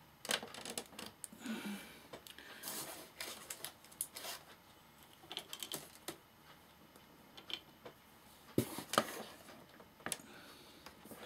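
Irregular small clicks and taps of a screwdriver and metal and plastic parts being handled while an amplifier's front panel is taken apart, with two sharper clicks near the end.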